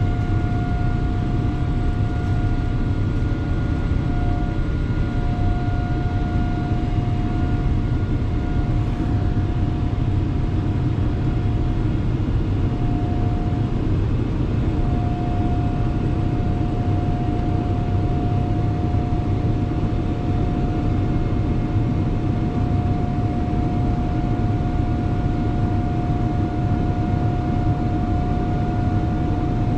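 Jet airliner cabin noise: a steady, loud rumble of engine and airflow with a steady whine over it.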